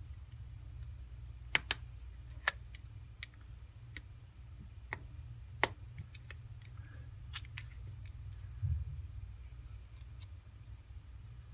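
Scattered sharp clicks and taps of small parts and hand tools being handled while a smartphone is put back together, over a steady low hum.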